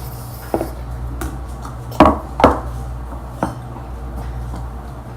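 A few short knocks and clatters of slime-making containers and utensils being handled on a table, the two loudest close together about two seconds in, over a steady low hum.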